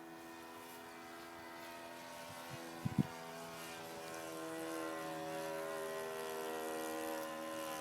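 Small RC model-airplane engine running steadily with a buzzing propeller note that drifts slightly in pitch and grows louder about halfway through. Two or three sharp knocks about three seconds in.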